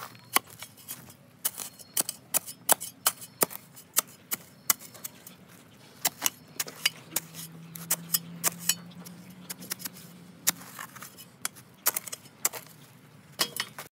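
Steel shovel digging into dry, sandy soil: repeated sharp, irregular scrapes and chops of the blade biting into the ground.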